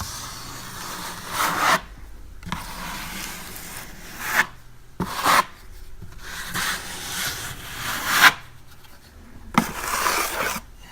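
Putty knife scraping wall compound across a paper-faced drywall patch, in several long rubbing strokes with short pauses between them, squeezing the putty out from under the patch's edges.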